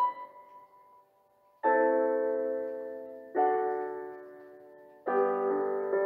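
Background piano music: slow chords struck about every second and a half to two seconds, each ringing out and fading away, with a short near-silent pause about a second in.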